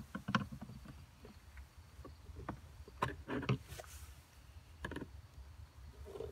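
Needle-nose pliers gripping and turning a fastener on a threaded stud in a plastic trim bracket, making a scatter of small, irregular clicks and knocks.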